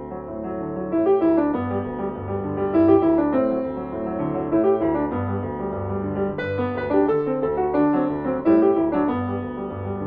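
Background piano music with a steady bass pulse.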